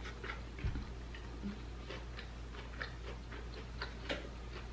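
Eating by hand: irregular small wet clicks of chewing, lip-smacking and finger-licking, with one dull low thump less than a second in.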